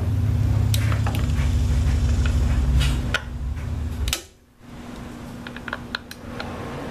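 Scattered metallic clicks and taps of a hand Torx driver on the T27 screws of a Harley-Davidson clutch inspection cover as they are broken loose, with a cluster of quick clicks near the end. A steady low hum runs beneath and drops out suddenly about four seconds in.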